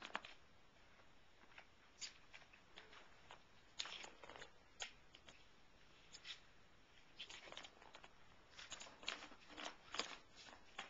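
Light, irregular clicks and rattles of kittens pawing at a plastic circular track cat toy, knocking its ball around the track and bumping the plastic rim. The clicks come singly and in short flurries with quiet gaps between.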